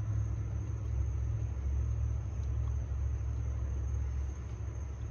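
Motor oil being poured from a small bottle through a funnel into the engine's oil filler, over a steady low rumble.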